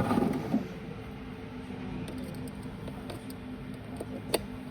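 A dental milling machine running with a steady low hum and a couple of even tones. A few light clicks come through, with one sharp click about four seconds in.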